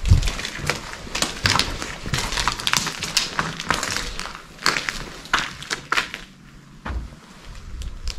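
Footsteps crunching over broken debris, grit and rubble on a floor: irregular crackling steps, easing off for a moment about six seconds in.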